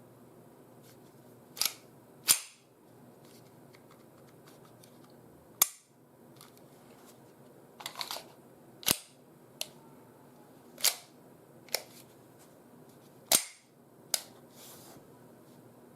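Sharp mechanical clicks and clacks from an Umarex Glock 17 Gen 5 9 mm P.A.K. blank pistol being handled, about nine in all, spaced irregularly a second or a few seconds apart. There is no shot.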